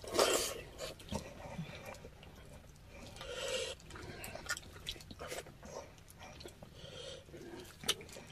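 Close eating sounds of people eating salmon-head sinigang: chewing and mouth noises with scattered small clicks and smacks.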